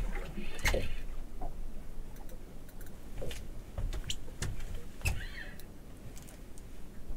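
Irregular knocks and clicks of fishing gear being handled aboard a small boat, with a short squeaky creak about a second in and another about five seconds in.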